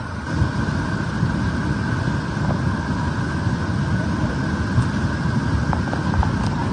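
Steady roar of a rushing flood torrent: a deep, continuous rumble with a faint steady whine above it.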